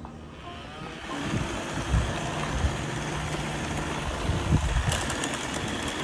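Several robot vacuums running together, their suction motors and brushes whirring steadily; the noise swells up about a second in as they get going, with a few sharp clicks near the end.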